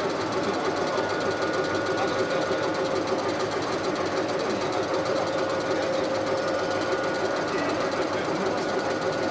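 A CNC turning lathe running and cutting a spinning workpiece: a steady machine drone with a fast, rough chatter and a constant whine underneath.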